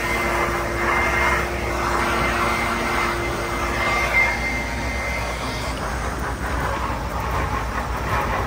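Ford F-150 pickup's engine held at high revs, its wheels spinning in the snow while it tries to climb out of a ditch. The sound is loud and steady, with a constant whine over the engine noise.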